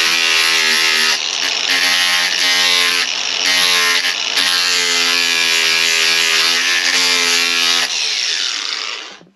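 Ryobi angle grinder with an abrasive disc running and grinding the end of a wooden floor piece, a steady high motor whine that sags briefly a few times as the disc bites into the wood. Near the end it is switched off and spins down with a falling whine.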